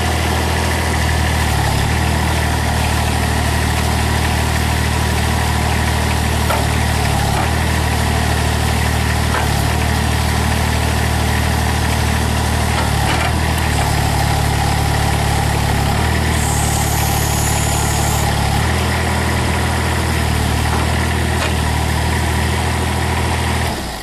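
Ditch Witch mini skid loader's engine running steadily while its hydraulics work the blades of a Bradco 2030 tree spade; the low engine note shifts a few times as the hydraulic load changes. The sound cuts off near the end.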